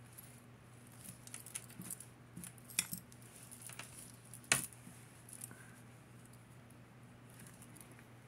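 Costume jewelry being handled: a scatter of small clinks and clicks, the sharpest about four and a half seconds in, over a faint steady electrical hum.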